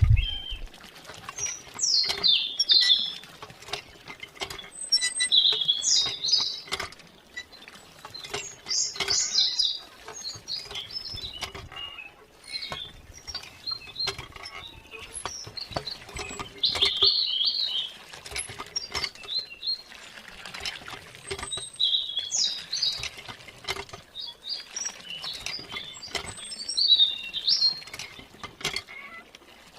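Birds chirping in short, repeated bursts, over a steady patter of small clicks and taps.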